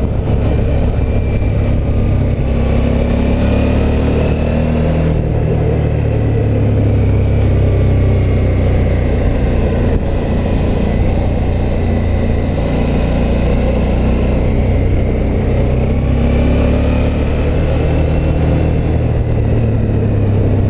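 Suzuki V-Strom motorcycle's V-twin engine under way, its pitch rising as it accelerates in the first few seconds, falling back about five seconds in, and rising again near the end, with wind rush over the microphone.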